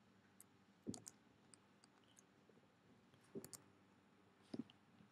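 Faint, scattered computer keyboard and mouse clicks, a few of them landing as light knocks, with near silence between them.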